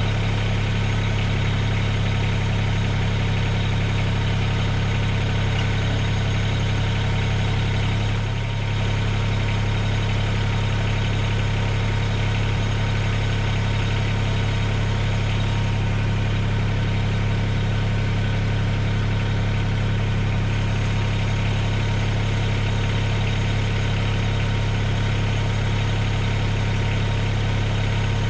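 Mahindra eMax 20S HST tractor's three-cylinder diesel engine idling steadily, with a brief dip in level about eight seconds in.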